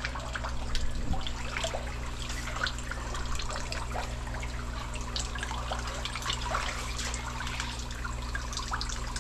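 Water trickling and splashing as a fish tank is being drained, with many small irregular drips and splashes. A steady low hum runs underneath.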